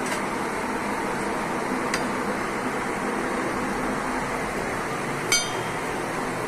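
Steady whirring hum of workshop machinery, with a light click about two seconds in and a sharp metallic clink about five seconds in.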